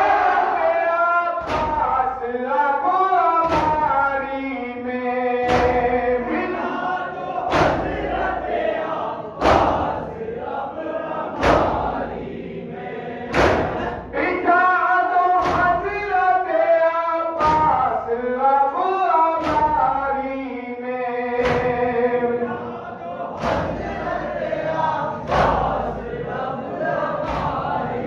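Men's chorus chanting a nauha (Muharram lament) in unison, with a loud collective strike of hands on chests (matam) about every two seconds.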